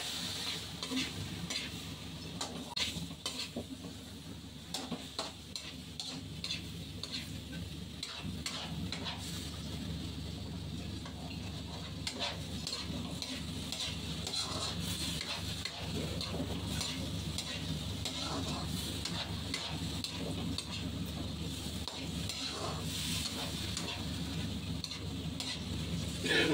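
Squid adobo sizzling in a pan while a metal spatula stirs it, the utensil scraping and clicking irregularly against the pan over a steady sizzle.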